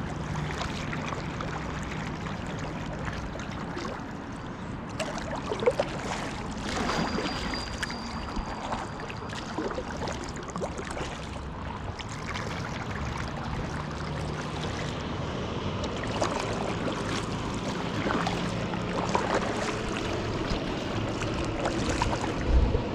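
Kayak paddling on a river: paddle blades dipping and water splashing and dripping in irregular strokes, over a faint steady low hum.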